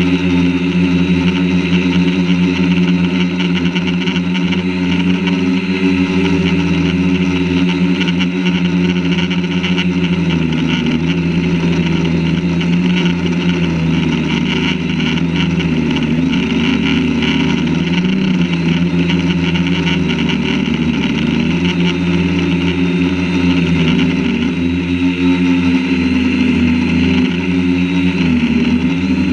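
Quadcopter drone's electric motors and propellers buzzing loudly and steadily, close to the microphone because the camera rides on the drone. The pitch wavers up and down as the motors speed up and slow down, most noticeably in the middle and near the end.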